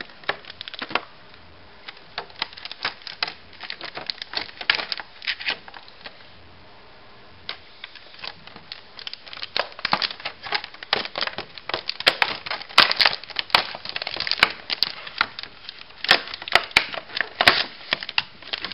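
Packaging crackling, crinkling and clicking in irregular bursts as a computer mouse is worked out of its box insert. The handling thins out briefly a few seconds in, then grows denser and louder for the second half.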